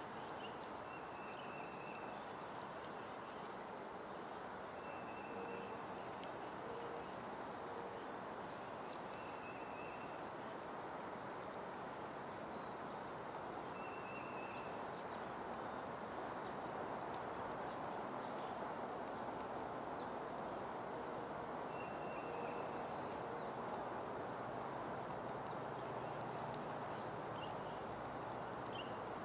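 Crickets trilling in a steady outdoor insect chorus: one continuous high note with a faster pulsing trill just above it. Faint short chirps come every few seconds over a constant background hiss.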